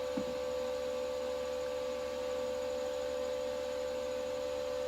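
Power Jack inverter running with its cooling fan on, a steady high-pitched hum that does not waver; the fan stays on all the time once it starts. There is a short faint knock just after the start.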